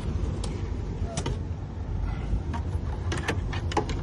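Scattered light clicks and clacks of small parts being handled, with several close together about three seconds in, over a steady low rumble.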